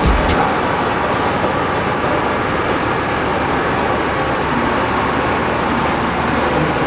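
Diesel engine of heavy road-construction machinery running steadily, a continuous even noise without a beat.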